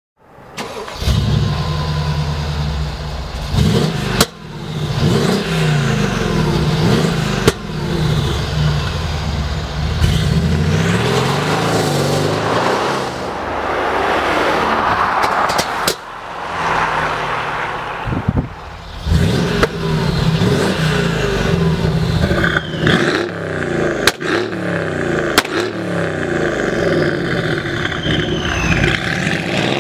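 Mercedes-Benz ML500 (W166) twin-turbo V8 running through its valved exhaust with the valves open, revved again and again so the note rises and falls repeatedly. A few sharp cracks break through.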